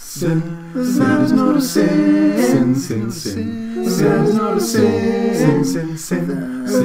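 Unaccompanied vocal harmony: several voices singing words together in chords, with no instruments.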